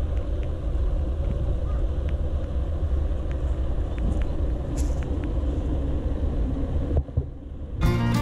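Steady low outdoor rumble with a few faint ticks, cutting off abruptly about seven seconds in; guitar music starts just before the end.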